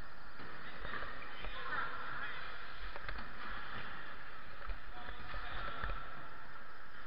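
Wheels rolling over skate-park ramps: a steady rushing noise with a few low bumps and a couple of light clicks.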